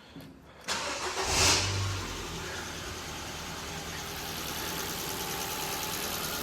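2010 Ford Fiesta's four-cylinder petrol engine starting less than a second in, flaring briefly, then settling into a steady idle. It runs smoothly on a fresh set of spark plugs, the slight misfire gone.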